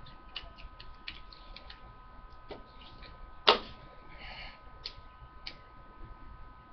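Scattered small clicks and taps of hard parts being handled on a small Lego puzzle box, with one sharp, louder click about halfway through.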